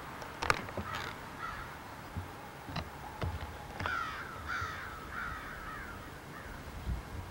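A crow cawing, a run of about five harsh calls in quick succession, after a sharp click about half a second in.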